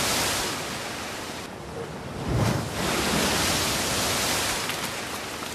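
Rushing, surf-like noise of waves washing over, standing for sinking under a flood of work. It thins briefly about a second and a half in, surges back, and eases near the end.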